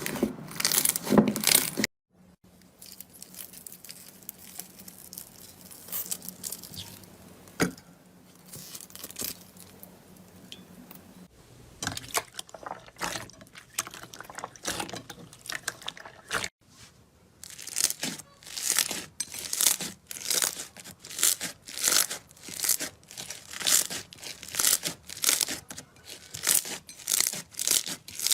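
Slime squeezed and worked by hand, making crinkling, crackling squishes. After a quieter stretch, these repeat at about two a second toward the end.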